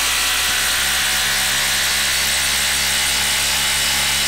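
Milwaukee 1/4-inch impact driver hammering without a break as it drives an 8-inch lag screw into solid wood under heavy load. The steady rattle is the anvil skipping, which means the driver is having a tough time.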